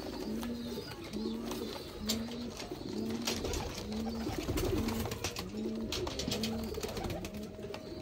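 Domestic pigeons cooing, a short low coo repeating evenly about once a second, with scattered light clicks and rattles from the wire cage as the birds are handled.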